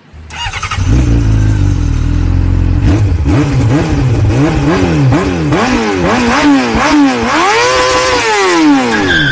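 An engine revving up and down over and over, loud, with a last long rise and fall near the end.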